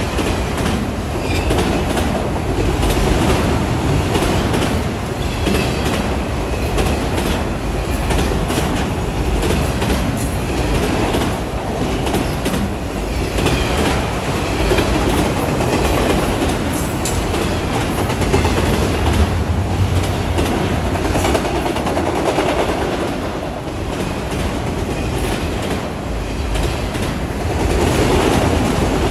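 Freight train of autorack cars rolling past close by: a steady, loud rumble of steel wheels on the rails, with repeated clacking as the wheels pass over rail joints.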